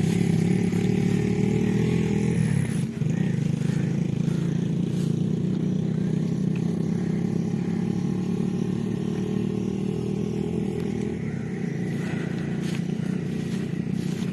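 A motor vehicle engine running steadily, with a brief dip about three seconds in.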